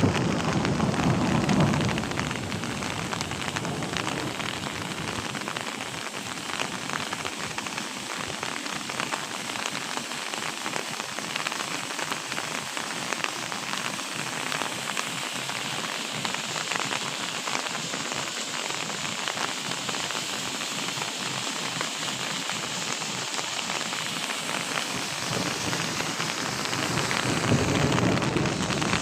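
Heavy rain falling steadily and hitting surfaces, with a louder low rumble in the first two seconds and again near the end.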